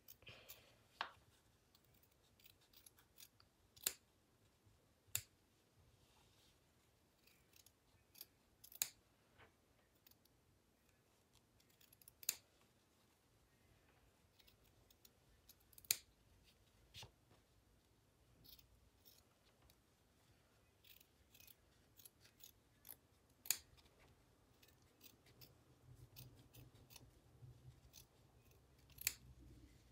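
Small scissors snipping along the outline of thin fabric: quiet, sharp snips at irregular intervals, a second or several apart.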